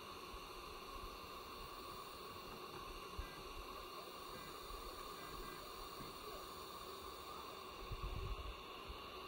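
Sculpto 3D printer running mid-print: a faint, steady mechanical hum and hiss with a steady whine, and a few soft low bumps about eight seconds in.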